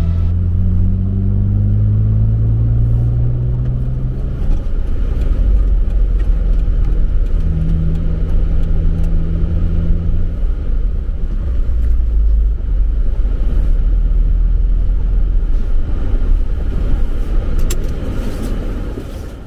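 Vehicle engine and road noise while driving: the engine note rises over the first few seconds as it accelerates, then settles into a steady drone, and fades out near the end.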